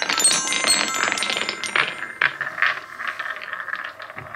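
Painted wooden balls rolling down a Kaden wooden marble run and striking its metal sound plates: a quick run of clicks, each followed by a ringing chime tone. After about two seconds the chimes thin out into a steady rolling noise with scattered wooden knocks as the balls run on along the wooden track.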